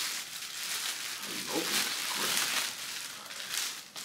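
Gift packaging rustling and crinkling as a present is handled and unwrapped, with a faint voice briefly in the middle.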